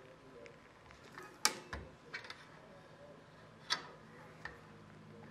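Hand rivet squeezer with number 3 dimple dies pressing dimples into the screw holes of a sheet-metal inspection cover plate: a few sharp metallic clicks, the loudest about a second and a half in.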